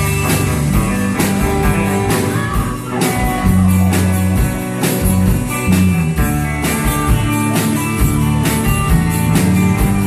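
Band playing an instrumental intro with no singing: guitar over bass and drums, with a steady beat.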